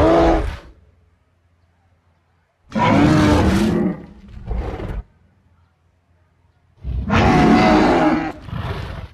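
Dinosaur roar sound effects: the tail of one roar at the start, then two more long, growly roars, each followed by a shorter second roar.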